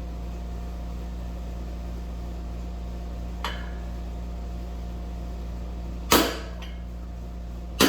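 Two loud hammer blows on a socket driving a new front wheel bearing into a Suzuki DRZ 400 SM hub, metal on metal, each ringing briefly: one about six seconds in and another right at the end. A faint tap comes a few seconds earlier, over the steady hum of an air conditioner.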